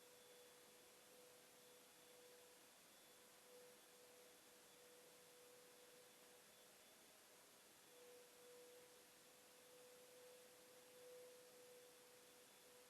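Near silence: faint hiss with a thin, steady, faint hum.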